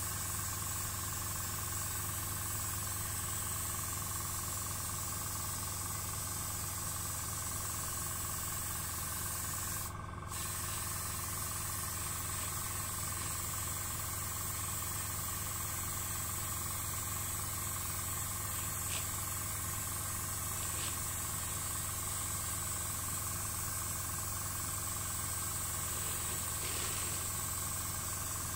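Airbrush spraying paint: a steady hiss of air over a low steady hum. The hiss stops for a moment about ten seconds in, then carries on.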